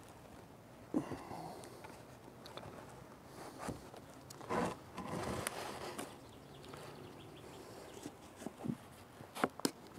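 Light knocks and scrapes of mini nuc boxes being shifted and set down on a wooden stand, with a small block put down beside them. There is a scraping stretch midway and a couple of sharp clicks near the end.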